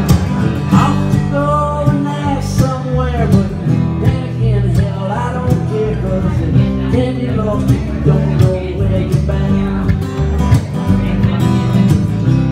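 A man singing over a strummed acoustic guitar, a live solo performance of a country-leaning song.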